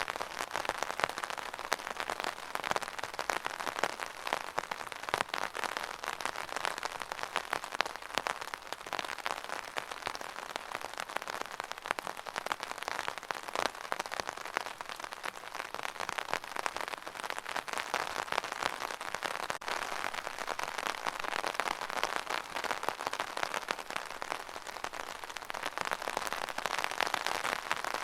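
Steady rain, a dense patter of many small drops striking a surface, without pause.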